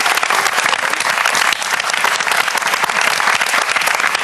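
Studio audience applauding: steady, dense clapping from a group of people.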